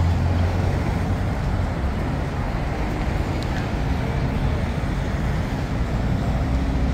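Steady city street traffic noise, with a low rumble of cars and vehicles driving past on a multi-lane road.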